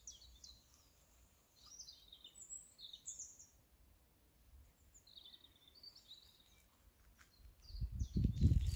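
Small songbirds chirping and twittering in short high phrases. Low buffeting noise hits the microphone near the end.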